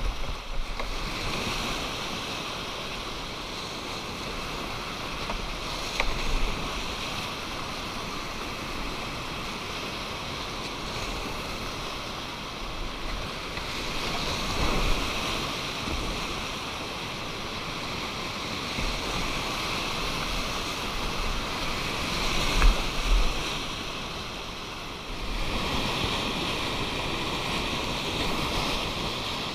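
Whitewater river rapids rushing, a steady hiss of moving water, with a few brief louder splashes or knocks and some low rumble of wind on the microphone.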